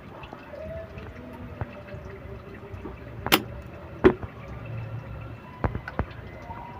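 A soldering iron desoldering a resistor on a CRT TV's circuit board: a few sharp clicks and taps, two louder ones about three and four seconds in and two lighter ones near the end, over a low steady hum.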